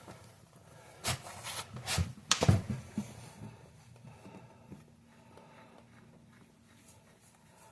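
A handful of short clicks and knocks, bunched about a second to three seconds in, from hands handling the metal nut and washer on a toilet's floor bolt; then only faint handling.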